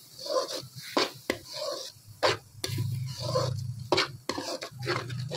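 Metal slotted spoon stirring a thick, wet filling in a kadai, with sharp scrapes and clicks of metal on the pan every second or so.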